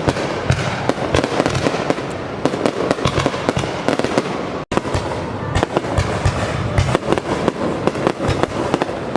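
Fireworks display: a dense, continuous run of bangs and crackles from aerial shells going off in quick succession. The sound cuts out for an instant about halfway through.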